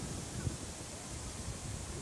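Wind buffeting the microphone outdoors, an irregular low rumble over a steady hiss, with one brief louder gust about half a second in.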